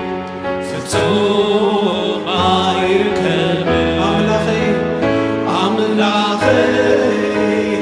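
Live Tigrinya gospel worship song: lead singers and a choir singing together over keyboard accompaniment. It is briefly softer at the start, and the full sound comes back in about a second in.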